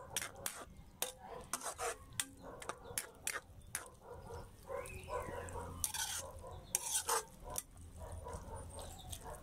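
Metal spoon stirring Chinese cabbage in a metal wok, clinking and scraping against the pan a few times each second at an irregular pace.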